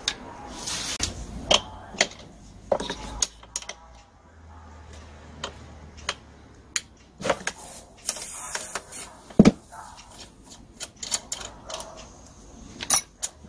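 Tools and small engine parts clicking and knocking at irregular intervals as the carburetor of a butane-fuelled brush cutter is taken apart by hand, with one louder knock about nine and a half seconds in.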